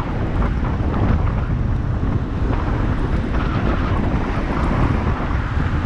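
Wind buffeting the microphone: a steady, heavy low rush with no let-up.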